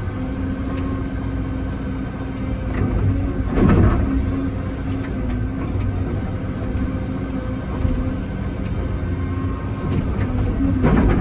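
Excavator's diesel engine and hydraulics running steadily while digging, heard from the operator's cab. Two brief louder swells, about four seconds in and near the end.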